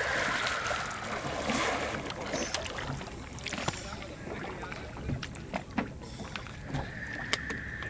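Small waves lapping and splashing against the side of a boat on a calm sea, with scattered light knocks and clicks. A steady high tone starts near the end.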